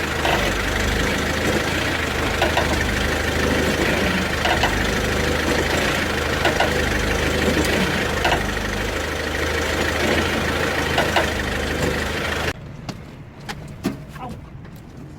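SsangYong Korando Sports diesel engine idling steadily, with faint sharp clicks every couple of seconds. The engine sound cuts off suddenly about twelve seconds in, leaving a much quieter background with a few clicks.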